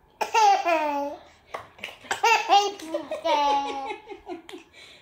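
Toddler girl laughing in three long, high-pitched bursts, with a few light hand claps in between.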